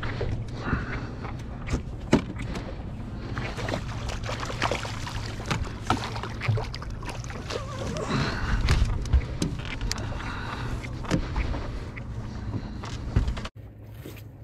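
Boat-side handling while fighting a hooked smallmouth bass: many scattered clicks and knocks of fishing gear and boat over a steady low rumble. The sound cuts off abruptly near the end.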